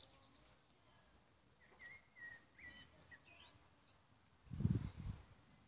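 Faint, high bird chirps, several short ones over a couple of seconds, then a brief loud low rumble, under a second long, about three-quarters of the way through.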